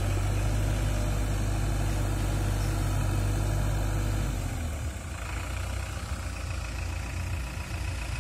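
JCB 3DX backhoe loader's four-cylinder diesel engine running steadily while the backhoe arm works. About four and a half seconds in, the engine note changes and drops a little in level.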